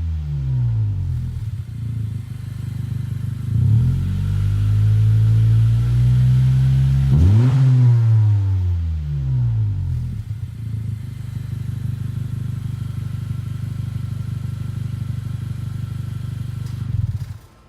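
2018 Honda Civic Hatchback Sport's warm 1.5-litre turbocharged four-cylinder revved through a Magnaflow 19373 cat-back exhaust with black chrome tips. Revs fall away at first, climb and hold for a few seconds, then a quick blip falls back, and the engine settles to a steady idle about ten seconds in until the sound cuts off near the end.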